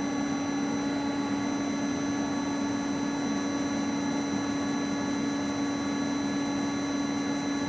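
CNC lathe spindle running steadily at about 500 to 600 rpm: a constant hum with a strong low tone and faint high whines from the spindle drive.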